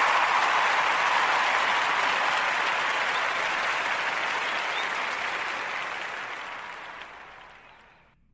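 Applause, a dense even clapping that fades out steadily and ends about eight seconds in.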